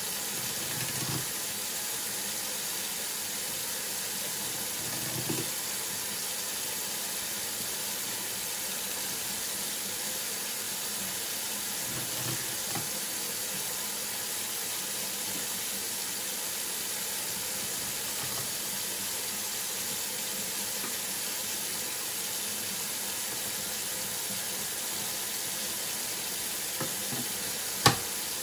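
Kitchen faucet running a steady stream into a stainless steel sink while a catfish is cut on a cutting board, with a few soft knocks. A single sharp click near the end.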